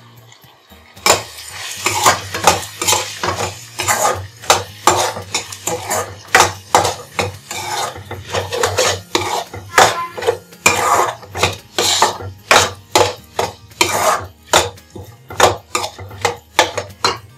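Steel spatula stirring and scraping a thick onion-tomato masala in a nonstick frying pan as spice powders are mixed in, with repeated scrapes and knocks against the pan, roughly two a second, starting about a second in.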